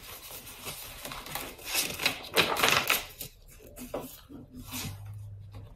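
Paper rustling and crinkling as the large pages of a picture book are turned and handled, loudest about two to three seconds in.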